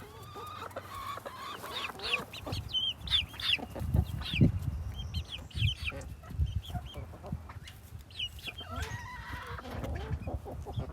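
Chickens clucking, a run of short repeated calls, with a few dull low thumps near the middle.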